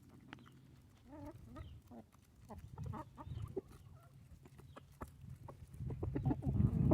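Chickens clucking, short calls scattered throughout and growing louder near the end.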